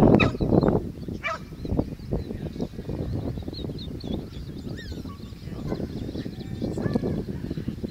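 A springer spaniel gives short, sharp calls in the first second. After that, wind buffets the microphone in uneven gusts, and small birds sing faintly in the background.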